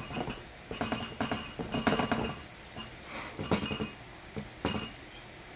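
Hands pressing and patting a raw chicken fillet into seasoned flour in a glass baking dish: irregular soft pats and knocks, with a few clinks against the glass, dying away about five seconds in.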